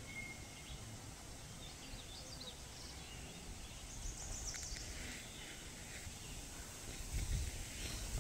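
Faint outdoor pond ambience with a few short bird chirps in the middle. Near the end, a low rumble of wind on the microphone builds.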